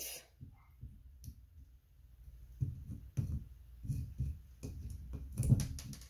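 A small wire-mesh strainer knocking and scraping against the rough bark of a log: a string of irregular dull knocks and clicks starting a little before halfway through.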